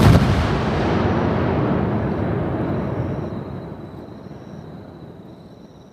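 A large aerial firework shell bursting close by. Its boom rolls on as an echoing rumble and dies away over about four seconds.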